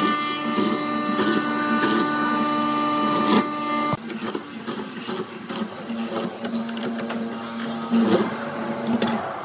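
Hollow-chisel mortiser running: a steady motor tone with the scraping, chip-cutting noise of the chisel and auger boring a square mortise into wood. The sound changes abruptly about four seconds in.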